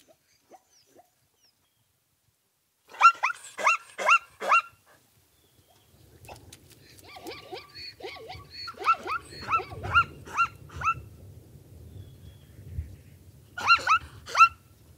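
Plains zebras giving their barking call: bouts of rapid, high, yelping notes, each note rising and falling in pitch, in three bursts. A low steady rumble sits under the later calls.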